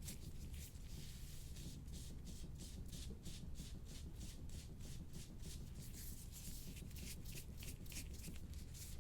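Soft-tissue scraping tool drawn over the skin of the neck in quick, short repeated strokes, a quiet dry rubbing sound about three to four strokes a second.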